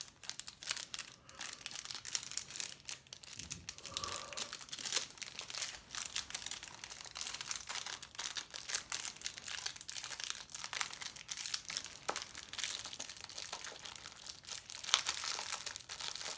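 Thin clear plastic wrapper crinkling and crackling irregularly as a small eraser is handled and pushed back into it.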